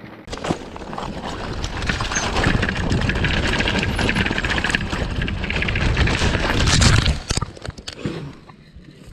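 Mountain bike ridden fast down a rough dirt trail: tyre noise and a rapid rattling of the bike over the ground, building to its loudest until a crash about seven seconds in. After the crash the noise drops to scattered knocks and rustling.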